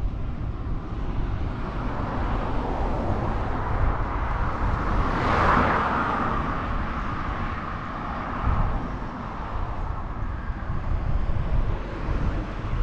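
A vehicle passing close by, its hiss swelling to a peak about five and a half seconds in and then fading away, over a steady low rumble of wind on the microphone of a moving bicycle.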